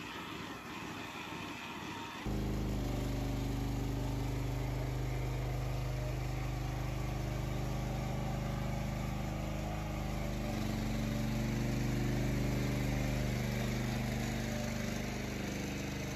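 About two seconds of milking-parlour noise, then the motor of a small ride-on calf milk-feeding cart starts abruptly and runs steadily at an even pitch as it drives along the calves' feeding trough.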